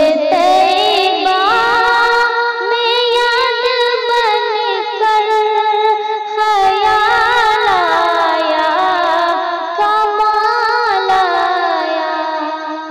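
A woman's voice singing a naat in long, ornamented held notes with a wavering vibrato, fading out near the end.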